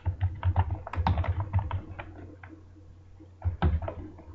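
Typing on a computer keyboard: a quick run of keystrokes for the first second and a half or so, a pause, then a few more keystrokes near the end.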